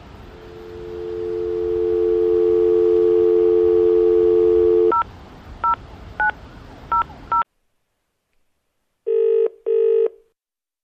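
Landline telephone: a steady dial tone fades in, then five keypad tone beeps as a number is dialled, the line goes silent, and one British double-ring ringing tone (two short buzzes in quick succession) sounds as the call connects.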